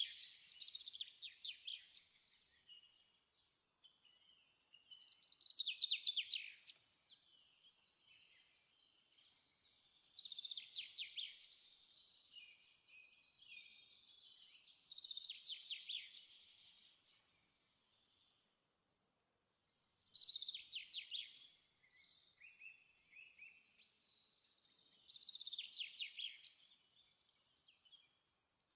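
A songbird singing short, fast trilled phrases, one about every five seconds, with quiet gaps between them.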